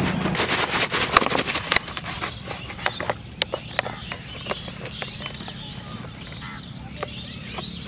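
Rapid crackling and clicking of a plastic bottle being handled close by, thinning out after about two seconds. After that, birds chirp quietly in the background, with a few scattered clicks.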